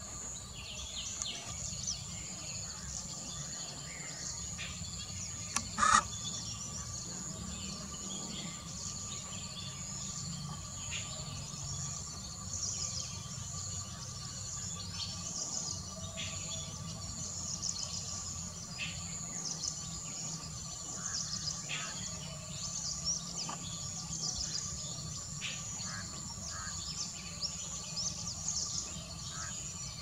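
Outdoor bird and insect chorus: many short bird chirps over a steady high insect buzz, with one brief loud sound standing out about six seconds in.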